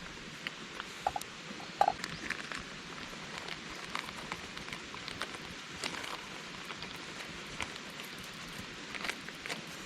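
Steady rushing of a mountain stream, with scattered small clicks and ticks over it.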